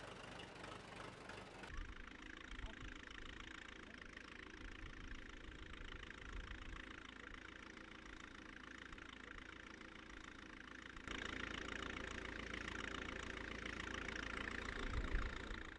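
1940 Fordson N tractor's four-cylinder side-valve engine running steadily while working a field, louder from about eleven seconds in.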